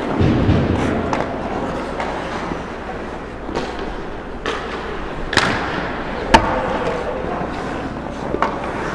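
Ice hockey skates scraping and carving on the ice, with a dull thump at the start and several sharp clacks of sticks and puck, the loudest about six seconds in.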